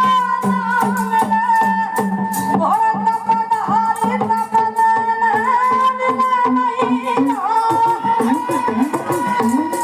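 Indian folk devotional music: a sustained, gently bending melody line over fast, even percussion with a rattle. Near the end a repeating rising figure enters lower down.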